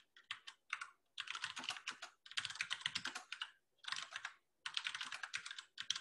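Typing on a computer keyboard: a few separate keystrokes, then several quick runs of clicks with brief pauses between them.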